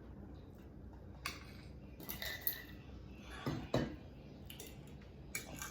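Eating utensils clicking and scraping against a plate during a meal, with a couple of louder knocks a little under four seconds in.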